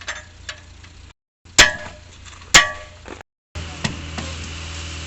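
Two loud metal clangs about a second apart, each ringing briefly, amid lighter knocks. Steady machinery noise follows near the end.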